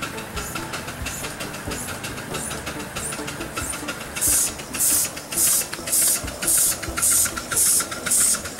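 Live-steam scale model locomotive chuffing, its exhaust beats coming as evenly spaced hissing puffs about twice a second, faint at first and loud from about four seconds in.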